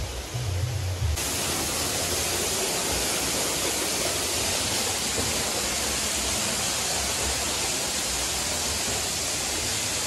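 Steady rushing of falling water from a waterfall, an even hiss with no breaks. In the first second, low bumps on the microphone.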